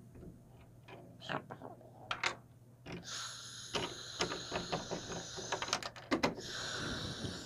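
Small plastic toy trays clicking and clattering against a plastic toy counter as they are picked up and handled. About three seconds in, a steady hiss joins the clicks, breaking off briefly near the end.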